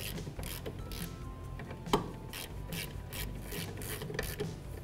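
Hand ratchet with a 14 mm socket clicking as it turns a brake caliper bracket bolt. The clicks are irregular, with one louder clack about two seconds in.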